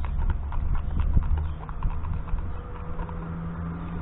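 Plastic spoon stirring resin and catalyst in a plastic mixing cup, ticking against the cup's sides several times a second and thinning out after about two seconds, over a low rumble.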